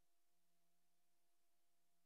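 Near silence: the film has no soundtrack, leaving only a faint steady hiss with a low electrical hum.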